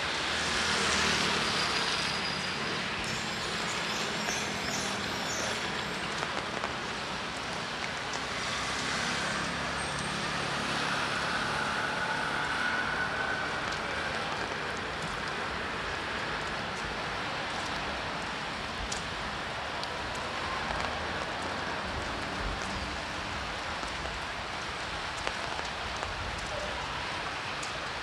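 Rain mixed with road traffic on a wet city street: steady rain noise, with a vehicle's engine hum in the first few seconds and passing traffic after it.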